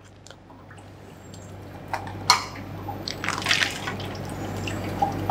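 Water dripping and splashing off vacuum-sealed plastic bags of poached plums as they are lifted out of an ice-water bath with metal tongs, with a few sharp clicks about two seconds in and a crackly rustle of the plastic bag about halfway through.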